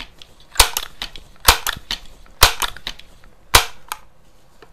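Crosman 2100 Classic multi-pump air rifle being pumped to charge it with air for a shot. Four sharp clacks of the pump lever come about a second apart, each followed by a few smaller clicks.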